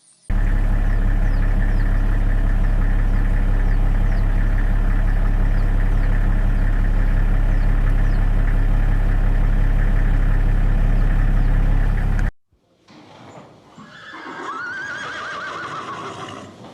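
A loud, steady, low-pitched drone that cuts off abruptly about twelve seconds in. It is followed by a horse whinnying, a single call that rises and falls.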